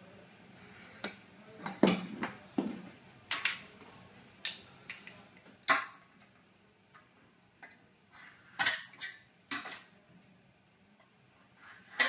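A steel rule, combination square and marker pens clinking and knocking against steel trunking and a wooden bench as the trunking is marked out: a dozen or so irregular sharp metallic clicks and taps.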